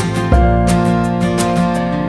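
Background music led by strummed acoustic guitar, changing chord about a third of a second in.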